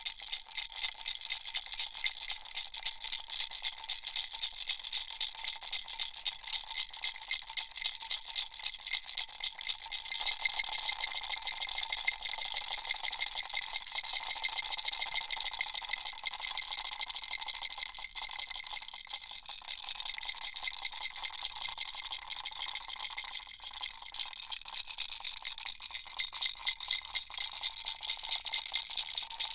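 Baby rattle shaken continuously: a dense, fast rattle of small pieces inside the toy, with a faint ringing note underneath.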